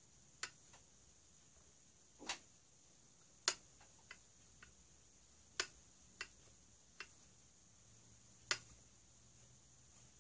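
Faint, sharp metallic clicks at irregular intervals, about seven in ten seconds, as a small screw blank held in a lathe chuck is threaded by hand through a screw plate.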